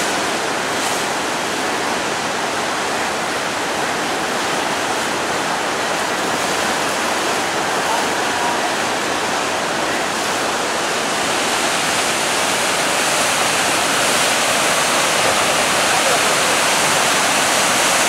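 Steady rushing of the flooded Mississippi River, churning with broken ice. The rushing grows a little louder about eleven seconds in.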